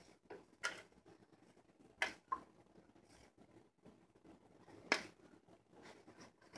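Three faint, sharp clicks, under a second, about two and about five seconds in, of a pouring jug and utensil knocking against a ceramic mixing bowl as melted chocolate sauce is poured into cake batter.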